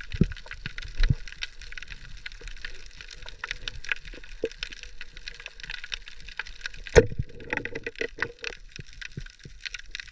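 Underwater crackle of a coral reef at night, a dense fizz of tiny clicks, with a few dull knocks and one sharp, loud knock about seven seconds in.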